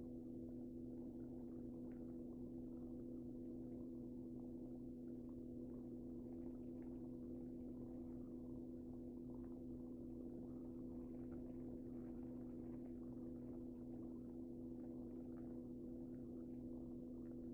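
Steady low electrical or motor hum, a few constant tones with faint crackle over it and no change throughout.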